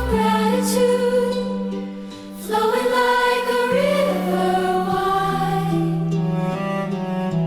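Acoustic worship song background music, with choir-like voices holding long notes over a low sustained accompaniment, and a brief dip in loudness about two seconds in.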